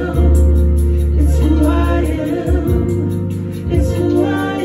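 Gospel worship song: singers with a Yamaha Motif 8 keyboard playing held chords and bass notes underneath, the bass note changing about halfway through.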